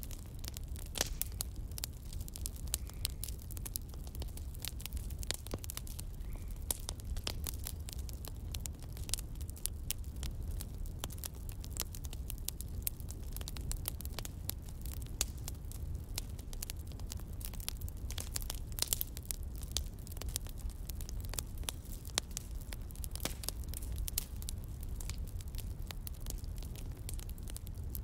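Crackling fire: many irregular small pops and snaps over a low, steady rumble.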